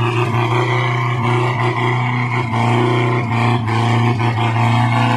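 Toyota 1W engine of a homemade farm truck running steadily under load as the truck crawls along a slippery, muddy track, with a few knocks and rattles from the truck.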